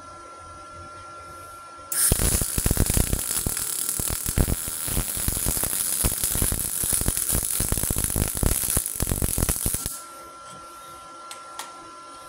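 MIG welding arc from a Multipro MIG-MAG 200S G-SP inverter welder on steel, shielded with an argon-CO2 mix rather than pure CO2: a loud, dense crackle that starts about two seconds in and stops about eight seconds later. Before and after the weld, a faint steady high tone.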